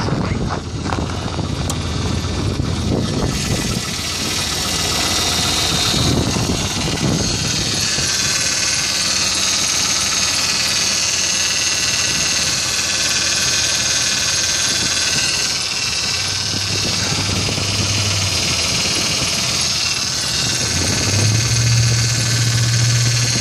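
Pontiac Grand Prix GXP's LS4 V8 idling after a −14 °F cold start, with the power steering pump making a steady, noisy whine as the stiff, frozen pump struggles to turn. Handling noise comes first, and the whine comes through clearly from about four seconds in.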